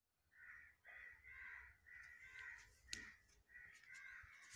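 A crow cawing faintly, about eight short harsh caws in a row, with one sharp click about three seconds in.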